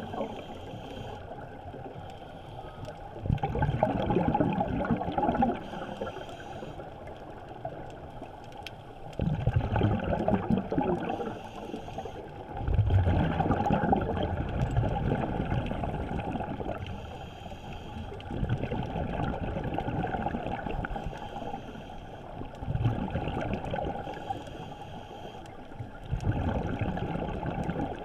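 Scuba regulator exhaust bubbles gurgling underwater in bursts every four to six seconds, a diver's exhalations, muffled by the GoPro underwater housing.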